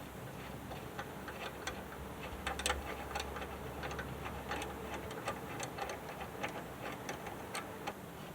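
A 3/8-16 tap being turned by hand into drilled holes in 3/16-inch steel plate, giving irregular sharp metallic clicks as the tap cuts and is backed off. A low hum sits underneath and stops about five seconds in.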